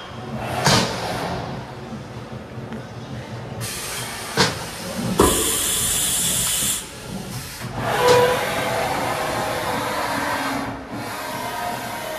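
Workshop noise: a steady hiss with a louder burst of hiss lasting about a second and a half in the middle, and a few sharp knocks.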